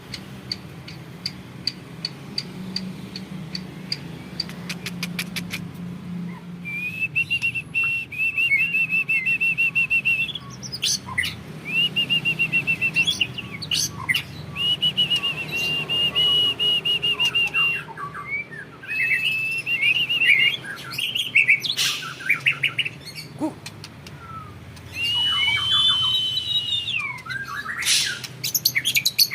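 White-rumped shama (murai batu) singing: a series of sharp ticks, then long, rapid trilled phrases held for several seconds at a time, broken by varied whistles and chattering notes.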